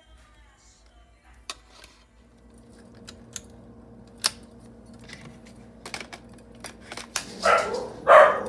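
Scattered sharp clicks and taps of kitchen utensils over a low steady hum, then a dog barking twice, loudly, near the end.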